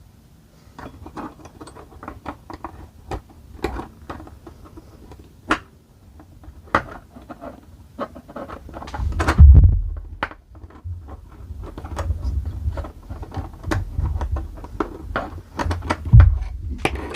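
Small metal clicks and taps as a pin punch is worked through a GHK AK airsoft rifle's magazine catch, with dull low thumps from handling the parts. The loudest thump comes about halfway through.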